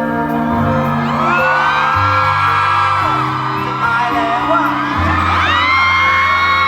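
Live band playing a slow pop song's instrumental passage, sustained bass notes moving from chord to chord, while a concert crowd of fans screams and cheers over it in two swells, about a second in and again about five seconds in.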